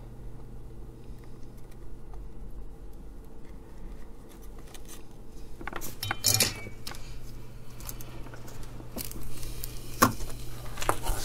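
Small parts being handled on a bench while a battery box is fitted: light metallic clinks and rattles, busiest about six seconds in, with a sharp click about ten seconds in, over a steady low hum.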